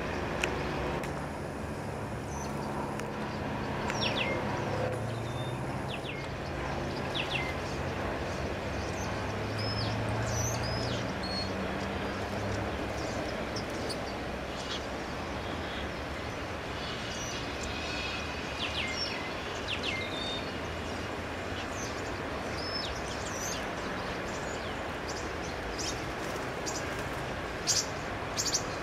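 Scattered short, high bird chirps over a steady low background rumble, with a humming drone under the first dozen seconds and a few sharp clicks near the end.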